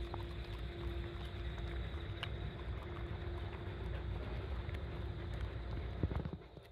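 Mixed-breed dog eating cooked azuki beans off a wooden board: small chewing and snuffling clicks over a steady low rumble, which drops away near the end.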